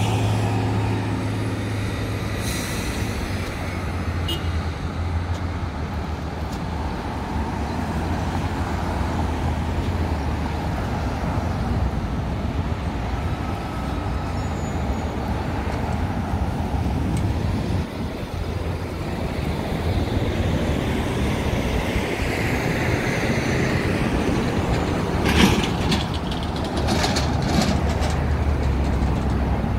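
Road traffic at a busy city intersection: cars and trucks running and passing, a steady low rumble. A few short sharp knocks come near the end.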